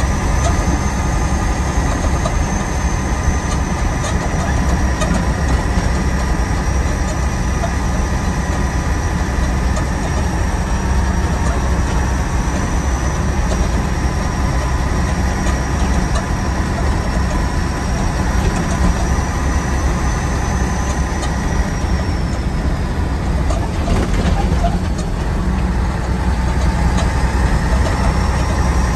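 Truck engine running steadily under way, heard from inside the cab: a continuous heavy low drone mixed with road noise, with a faint high whine that drifts slightly in pitch.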